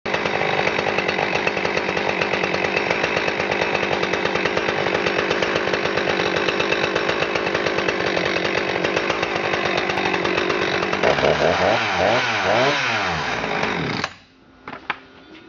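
Husqvarna 357 XP's 56cc two-stroke chainsaw engine running steadily, then revved up and down several times before being shut off suddenly about fourteen seconds in. A few faint clicks follow.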